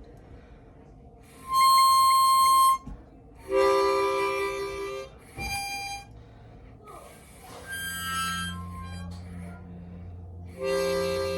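A short tune of held notes played on a musical instrument: a loud single note, then two-note chords and a brief note, with a low steady hum joining about two-thirds of the way through. It is played as the ending phrase of a romantic song.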